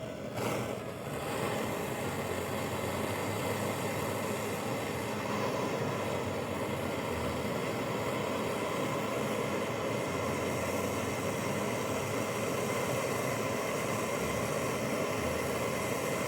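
Gas brazing torch flame burning with a steady rushing noise while refrigerator compressor pipe joints are brazed.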